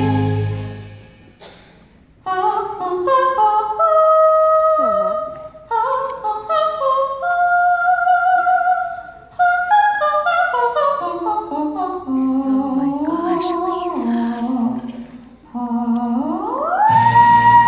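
A young woman's solo voice singing a melody unaccompanied through a microphone, starting about two seconds in after the preceding music fades. Near the end she slides up into a long held high note as a low sustained accompaniment comes in underneath.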